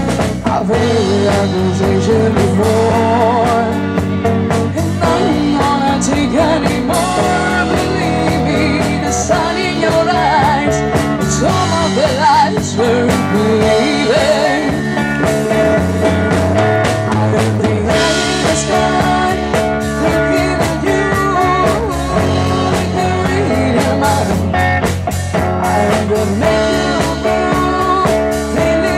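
Live rock band playing: a woman singing over electric guitar, bass guitar and a drum kit keeping a steady beat.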